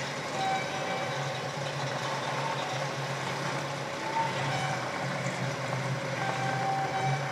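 Old hot-rod pickup truck's engine idling with a steady low note while the truck creeps slowly into a garage.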